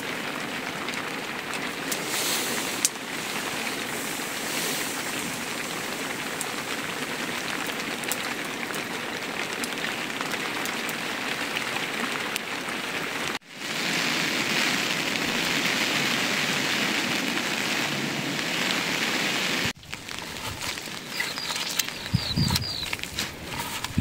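Steady rain falling, with an abrupt break about halfway through, after which it is louder, and another near the end. In the last few seconds the rain is lighter, with a few short chirps and knocks.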